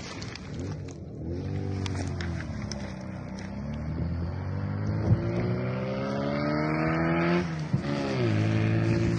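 Vehicle engine revving and accelerating: its pitch climbs steadily, drops suddenly about seven and a half seconds in like a gear change, then climbs again.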